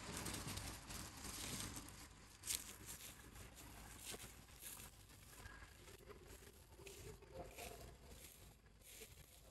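Faint rustling and crackling of dry fallen leaves as baby monkeys scramble over the forest floor, with a sharper crackle about two and a half seconds in.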